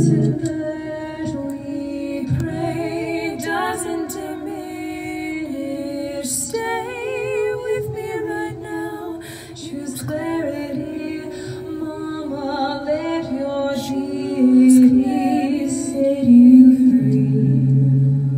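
Ambient trance song: a woman singing a slow melody with wide vibrato over a steady low drone, which drops out early on and comes back near the end.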